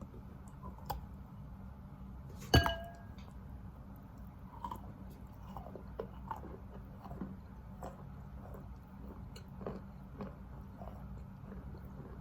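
Wet Khrapovsky chalk being bitten and chewed close to the microphone. One loud sharp crunch with a short ringing tone comes about two and a half seconds in, then soft, scattered wet chewing and crackling as the gritty chalk is chewed into a paste.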